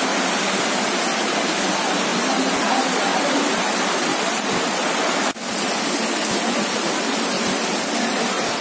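Heavy rain pouring down onto a street, a loud steady hiss that breaks off for an instant about five seconds in.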